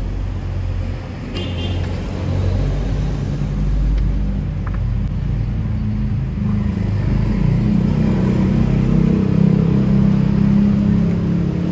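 Motor vehicle engines on the road close by, a low engine drone that grows louder over the last few seconds.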